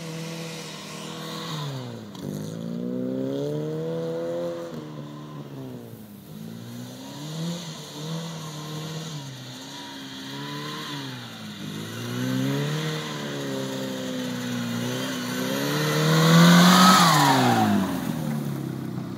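Classic Mini Cooper's four-cylinder engine revving up and falling back over and over, every second or two, as the car is driven hard through tight turns. It gets loudest near the end as the car comes close past, and the pitch then drops away.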